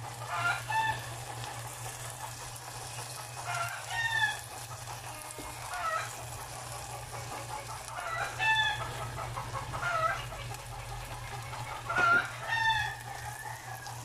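Chickens calling off-camera: short rising-and-falling calls about every two seconds, over a steady low hum.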